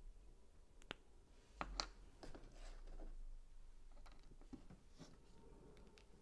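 Plastic Lego pieces being handled, giving a few faint, scattered clicks and clatters, the sharpest a little under two seconds in.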